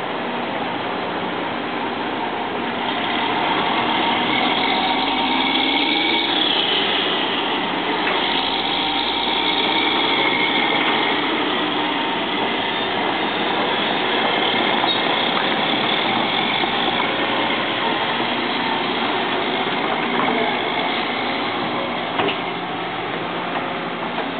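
Sumitomo hydraulic excavator working: the diesel engine runs under load, with whining tones that glide up and down. It grows louder about three seconds in and eases off near the end. A single sharp knock comes shortly before the end.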